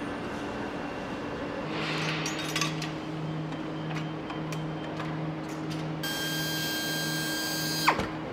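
Factory-floor ambience: a steady machinery hum with a low tone pulsing about twice a second and scattered clinks of tools. About six seconds in, a high whine starts and then drops away sharply just before the end.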